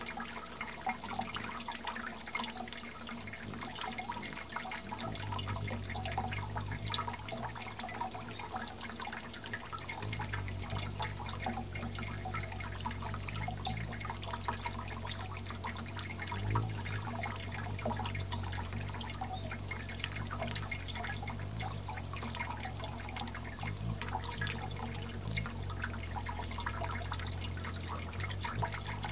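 Small fountain's water jets splashing and dripping into a shallow basin, a dense steady patter of droplets. A low hum comes in about five seconds in and holds steady from about ten seconds on.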